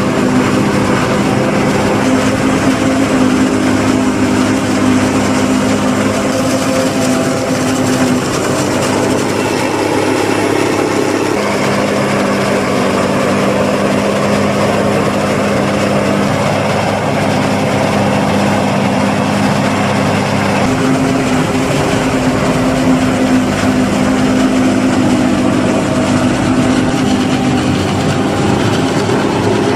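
Self-propelled forage harvester chopping maize, with tractors pulling tipping trailers alongside, all running at work. The sound is a steady, loud mechanical drone carrying several engine tones, and the mix of tones shifts twice, about a third and two thirds of the way through.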